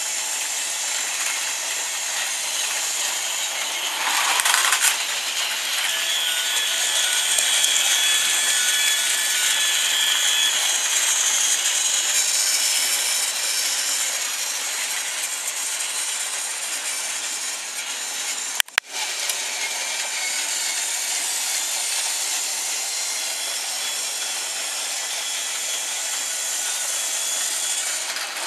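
Battery-powered plastic toy trains running on plastic track: a steady high whirring and rattling of their small motors and gearboxes, cut off for an instant about two-thirds of the way through.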